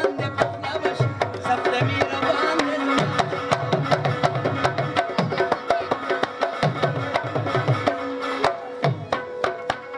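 Instrumental passage of Pashto folk music: a harmonium holds steady chords and melody over a fast rhythm of hand drums, with deep bass strokes and sharp high slaps.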